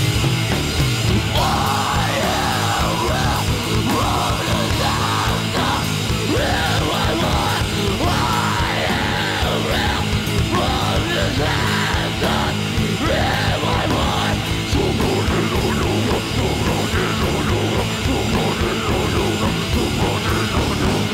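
A live heavy metal band playing loudly: distorted electric guitars and pounding drums, with screamed vocals over much of it.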